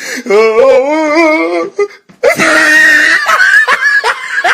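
A man's hysterical, high-pitched laughter: a long wavering wail that breaks off about two seconds in, then a squealing, wheezing laugh.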